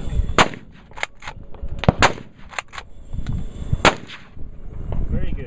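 Three shots from a Blaser R8 straight-pull bolt-action rifle, spaced roughly a second and a half apart, with lighter sharp clacks between them as the straight-pull bolt is worked back and forward for rapid follow-up shots.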